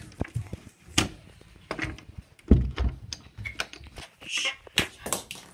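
Knocks, bumps and shuffling of people moving about in a cramped closet, with one heavy thump about two and a half seconds in.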